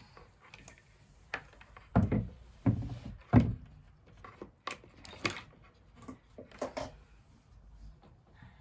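A series of knocks and clunks from household things being handled during cleaning: three heavier thuds about two, two and a half and three and a half seconds in, then lighter clicks and taps.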